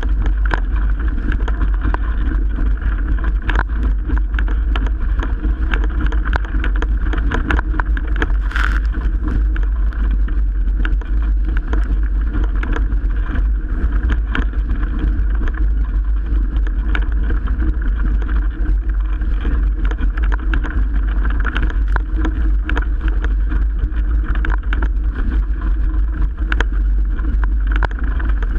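Strong wind buffeting the microphone over the steady rush of water past a Melges 24 sailboat's hull in 30-plus-knot winds, with frequent short, irregular slaps of water.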